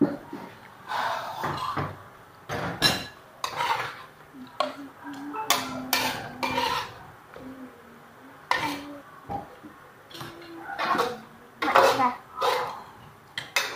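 Metal ladle clanking and scraping against a steel wok while vegetables are stir-fried, in irregular strikes, with occasional clinks of cutlery on plates.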